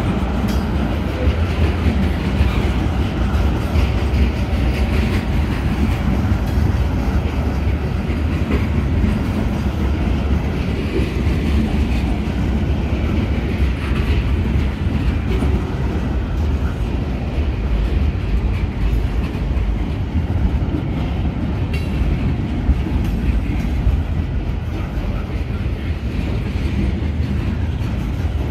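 Freight train of boxcars and flatcars rolling steadily past close by: a continuous low rumble and clatter of steel wheels on the rails.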